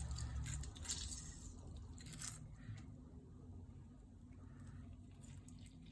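A lemon squeezed by hand, with faint squishing and a few small crackles spread across a few seconds.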